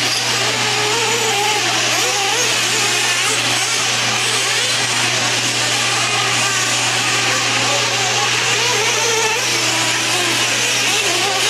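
Several 1/8-scale nitro truggies' small two-stroke glow engines buzzing high and revving up and down as they race, over a steady low hum.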